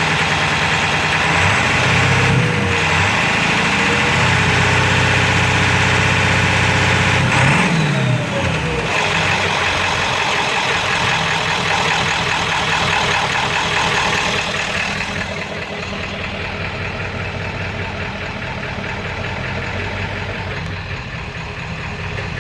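7.3-litre V8 diesel engine running at idle with a rough, knocking sound that the owner takes for a rod knock. Its pitch briefly dips and recovers twice in the first several seconds, and it settles quieter about two-thirds of the way through.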